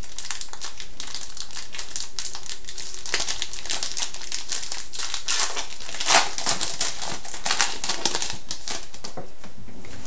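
Trading-card pack wrapper being opened and crinkled by hand, with cards shuffled between the fingers: an uneven run of crackles and small clicks, busiest in the second half.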